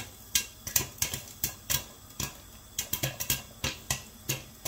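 Popcorn kernels popping in a covered frying pan under a glass lid: irregular sharp pops, several a second.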